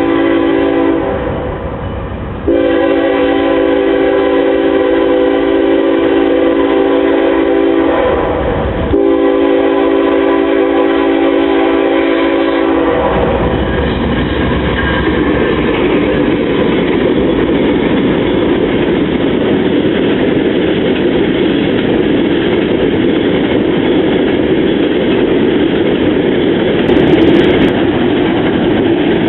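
Diesel freight locomotive's multi-chime air horn sounding three blasts, the last two long. Then the locomotives and freight cars rumble past with a steady noise and wheel clatter.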